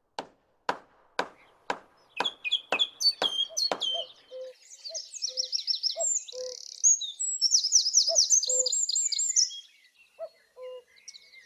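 A run of about eight evenly spaced knocks, two a second, over the first four seconds. Songbirds then sing with fast chirping trills, alongside short low tones repeated every second or so.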